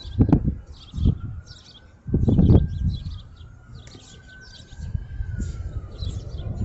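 Small birds chirping over and over, with irregular low rumbles on the microphone, the loudest about two seconds in.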